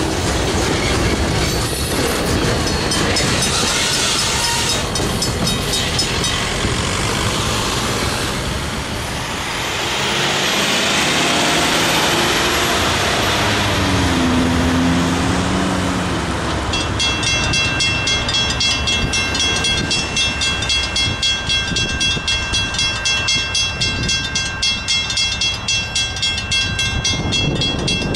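A freight train's boxcars rolling over a grade crossing, with a rapid ringing in the background. Then a mechanical railroad crossing bell: an electromagnetic hammer strikes the gong many times a second. The strikes begin about two-thirds of the way in, and the ringing tone holds steady between them.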